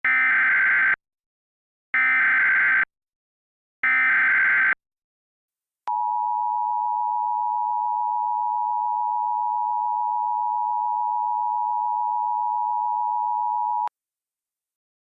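Emergency Alert System tones: three one-second bursts of SAME header data about two seconds apart, then the steady two-tone EAS attention signal held for about eight seconds before cutting off sharply.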